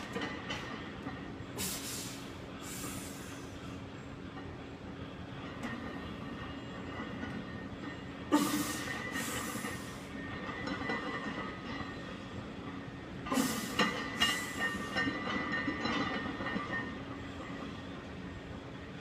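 A squatting lifter's hard, rushing breaths between heavy barbell back-squat reps. They come in three pairs, several seconds apart, over a steady background hum.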